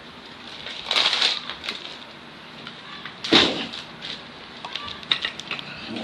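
Packaging being handled during unpacking: crinkling and crackling rustles, with a loud burst about a second in, a louder one at about three and a half seconds, and scattered light ticks between.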